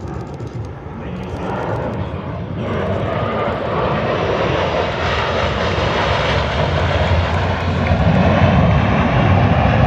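Jet engine roar of Blue Angels F/A-18 Super Hornets flying past, growing steadily louder as they approach and loudest near the end.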